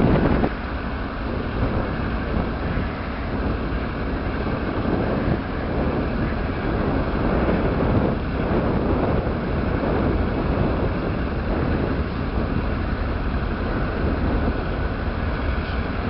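Canadian National diesel locomotives approaching slowly, a steady low engine rumble mixed with wind buffeting the microphone. A louder sound cuts off about half a second in.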